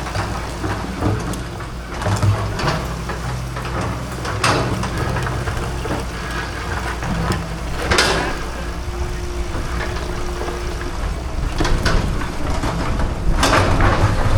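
Excavator's engine running steadily, with a scraping crunch several times as it works against a cement fence.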